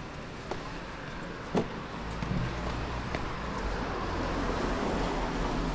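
A car's engine rumbling close by, growing louder from about two seconds in, over the general noise of a city street. A single sharp knock sounds about a second and a half in.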